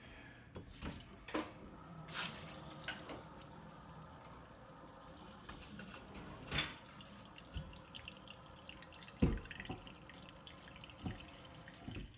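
Kitchen faucet running a thin stream into a plastic bowl in a stainless steel sink, with irregular pops and knocks, while air is bled out of the water line after the system was drained and repressurised.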